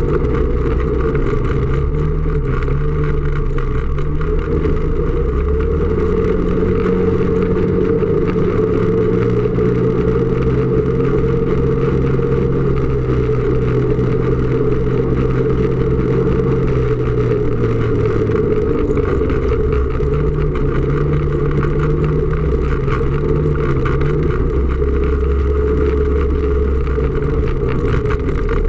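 Snowmobile engine running continuously while under way. Its pitch rises a few seconds in, holds for about ten seconds, and drops back near the middle of the stretch.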